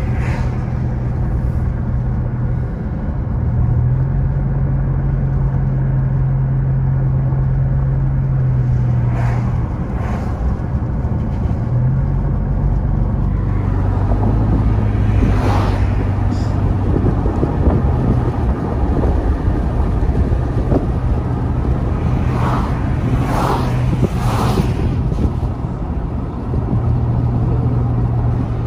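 Car driving at road speed, heard from inside the cabin: a steady engine hum that shifts pitch a few times over constant tyre and road noise. A few short, louder rushes come and go, near the middle and towards the end.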